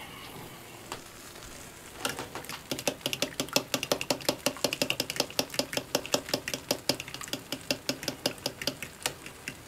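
Eggs being beaten by hand in a bowl, the utensil clicking against the bowl in a rapid, steady rhythm of about six strokes a second, starting about two seconds in.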